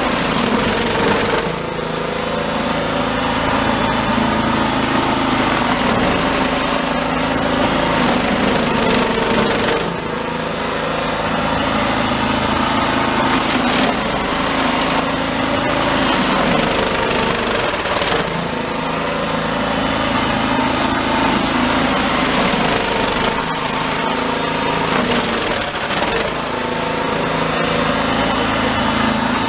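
Toro Snowmaster 724 QXE snowblower's single-cylinder four-stroke engine running under load, its auger and impeller churning through heavy, melted-and-refrozen snow and throwing it out the chute. The engine note sags every several seconds as it bites into the heavy snow, then picks back up.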